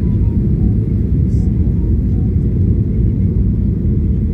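Steady low rumble of an airliner after landing, even throughout with no rise or fall.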